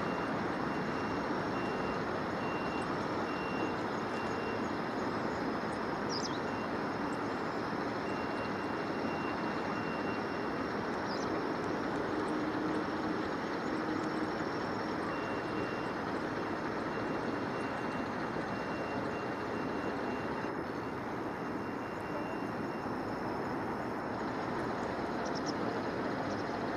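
Steady din of heavy construction machinery and vehicle engines, with a faint high beeping tone that comes and goes, like a reversing alarm.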